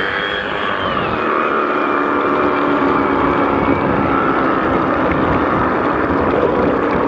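Flex FX2271 24-volt cordless reciprocating saw running with its blade end under water. Its motor whine drops in pitch during the first second as the water loads the blade, then holds steady, with water churning and splashing.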